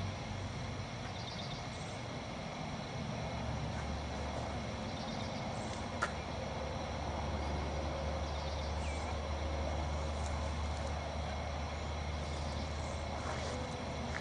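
Outdoor ambience over a steady low hum, with faint high ticking and a single sharp click about six seconds in.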